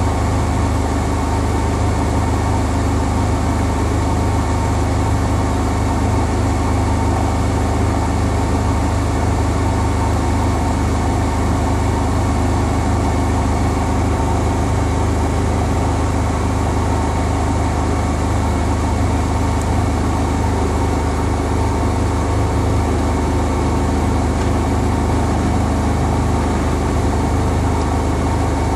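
Bosch Home Professional WAY32742 front-loading washing machine in a high-speed spin with an unbalanced load of two bath rugs, running steadily with a strong low drone.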